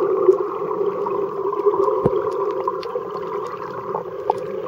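Underwater ambience picked up through a waterproof camcorder's body while snorkelling: a steady, muffled rushing with scattered faint clicks and ticks, and one louder knock about two seconds in.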